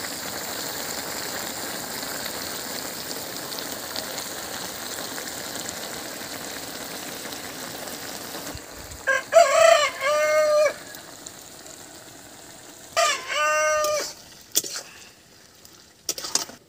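Curry simmering in a pan over a wood fire with a steady sizzle, then a rooster crows twice, the second crow a few seconds after the first. A few sharp clicks near the end.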